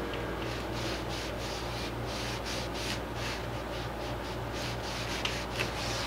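A crumpled tissue dabbed and rubbed against textured watercolour paper in short repeated strokes, about two or three a second, with two small clicks near the end.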